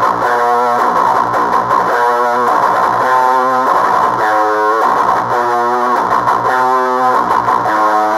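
Electric guitar played through an HM-2-style 'Swedish Chainsaw' distortion pedal and a JHS Bonsai overdrive, both switched on: heavily distorted, with a new chord or note struck about every one to one and a half seconds over a thick, buzzy sustain.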